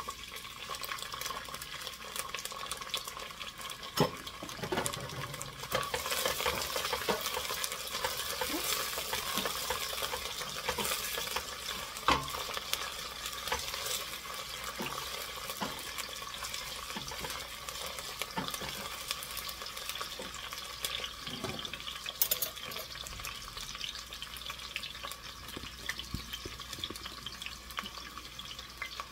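Chopped celery sizzling in hot olive oil in a stainless steel stockpot, stirred with a wooden spoon, with a sharp knock of the spoon against the pot about four seconds in and another about twelve seconds in.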